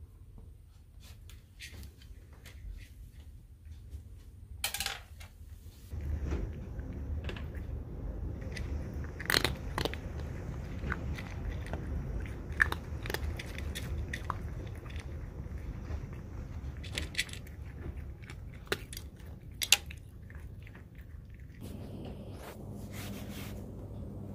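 A cat eating dry kibble from a bowl, with irregular sharp crunches as it chews. The crunching is louder and closer from about six seconds in.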